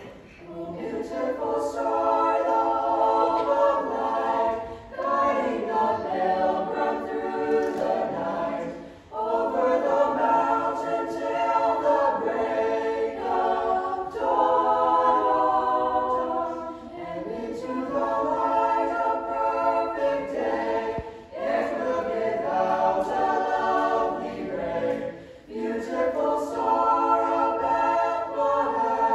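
Mixed choir of children and teenagers singing a cappella, in phrases of a few seconds with short breaks between them.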